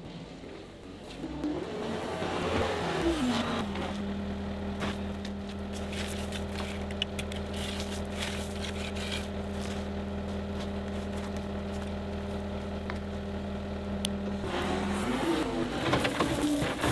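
Diesel engine of a John Deere compact track loader. Its pitch shifts as the machine moves in, then holds steady for about ten seconds, then rises and varies again near the end as it drives away. Scattered light clicks and scrapes of gravel sit over the steady engine.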